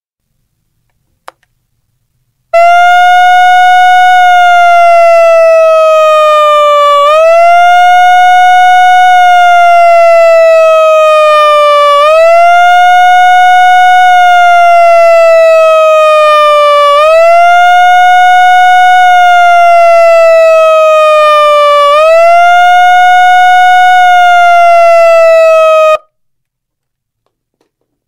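Megaphone's electronic siren: a tone that jumps up quickly, holds, then slides slowly down, repeating about every five seconds for five cycles before cutting off suddenly.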